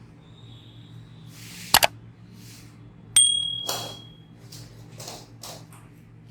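A chiropractic neck adjustment: two sharp cracks in quick succession about two seconds in, the stiff upper cervical joints releasing. About a second later a sudden bright ding rings briefly, followed by a few soft rushing noises.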